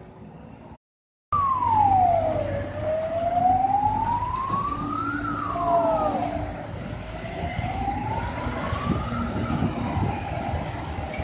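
A siren wailing, its pitch sweeping slowly down and up every few seconds, with a second siren joining briefly. Underneath is the low engine rumble of a convoy of military trucks carrying howitzers. The sound cuts out for about half a second about a second in.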